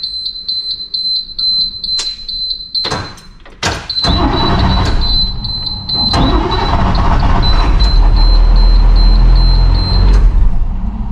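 Dash warning buzzer beeping rapidly, about four beeps a second, while the key is turned. After a few clicks, the International 3800's T444E V8 diesel cranks over loudly from about four seconds in. The buzzer stops near the end.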